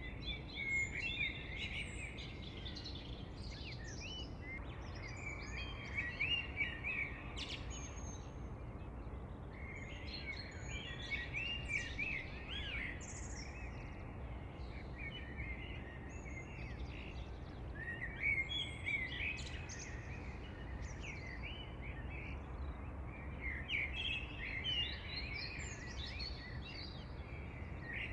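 Birds chirping and singing in quick bursts that come and go every few seconds, over a steady low background hiss.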